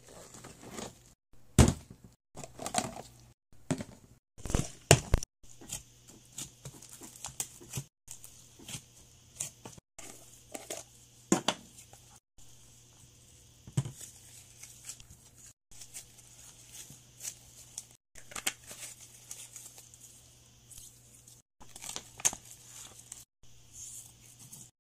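Clear plastic slime tubs and lids handled with gloved hands: a string of sharp plastic clicks, taps and crinkles, loudest about one and a half and five seconds in, over a faint steady low hum.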